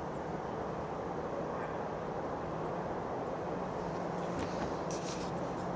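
Steady outdoor rumble of distant road traffic, with a faint low hum running under it. A few faint clicks come near the end.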